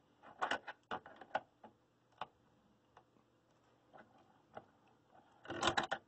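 Metal clicks and clinks of a wrench working a brass isolation valve on a circulator pump: scattered taps, then a denser run of clicking near the end.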